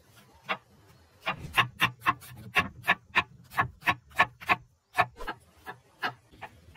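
Kitchen knife chopping an onion on a wooden cutting board: a run of sharp knocks of the blade on the board, about four a second, with a brief pause about five seconds in.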